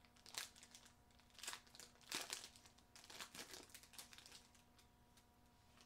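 Foil wrapper of a trading-card pack crinkling faintly in the hands as it is opened, in several short, irregular crinkles over the first four seconds.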